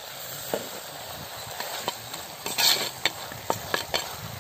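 Quail pieces sautéing in hot oil in a clay pot, with a steady frying sizzle, while a metal ladle stirs them, scraping and tapping against the pot now and then. They are being cooked in oil with no added water for a dry sukka.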